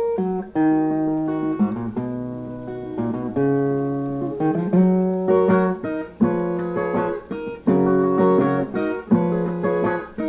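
Instrumental passage on a Brazilian viola (steel-string folk guitar), plucked melody notes and strummed chords with a strong stroke about every second and a half.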